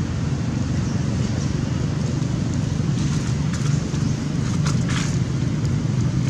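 A steady low rumble of background noise, with a few short faint clicks between about three and a half and five seconds in.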